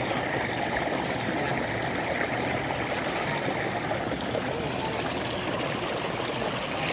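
Shallow water pouring over a low step in a stone-lined channel, a steady rushing splash.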